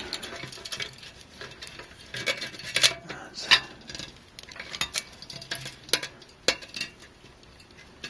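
A 140 mm fan and its wire fan clips being worked into the middle of a Phanteks PH-TC14PE tower CPU heatsink: irregular clicking, tapping and scraping of the fan frame and clips against the metal fins, with a few sharper clicks midway.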